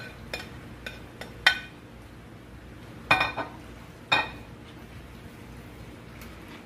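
A utensil knocking and clinking against a cooking pot: several sharp ringing taps, the loudest about a second and a half in, then two longer clatters around three and four seconds in.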